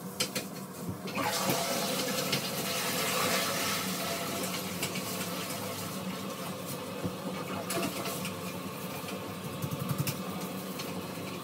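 Toilet flushing about a second in, water rushing into the bowl and then running on steadily as it refills, after a few light knocks at the start.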